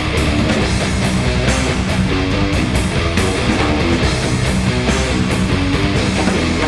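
Electric guitar played with heavy high-gain distortion through Engl Invader 100 and Mesa Boogie Caliber .50 tube guitar amplifiers, fast metal riffing with quick note changes.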